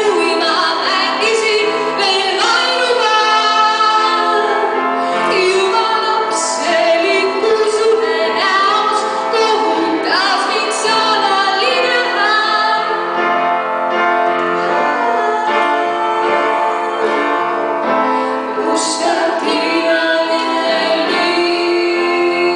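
A woman singing a slow song into a microphone, accompanied by an upright piano.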